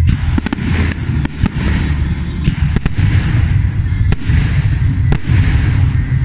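Aerial fireworks bursting: a rapid string of sharp bangs with crackling and hiss between them.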